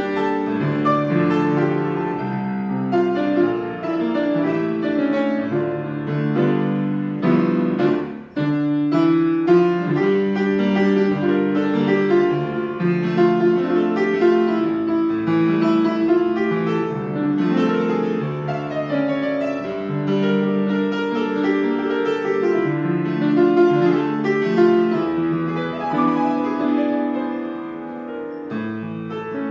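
Grand piano played continuously with dense chords and melody, with a brief break a little past eight seconds in.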